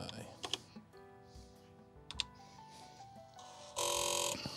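Keys pressed on an Apple IIe keyboard to start formatting a blank floppy disk: sharp clicks about half a second in and again about two seconds in. A loud buzz lasting about half a second follows near the end, over faint background music.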